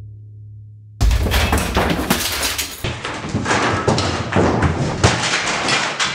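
A sudden loud crash about a second in as storage boxes and their contents fall from a bookshelf, followed by a run of knocks, clatter and thuds as things hit the shelf and floor.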